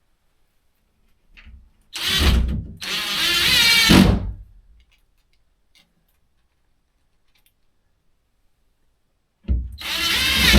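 Power drill run in short bursts, its pitch wavering, while fixing a wire-shelf support to the wall: once briefly about two seconds in, then a longer run straight after, and again near the end.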